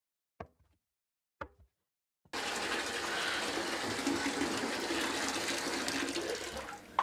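Two soft thuds, then about two seconds in water starts gushing suddenly from a tap into a bathtub and runs steadily, easing slightly just before the end.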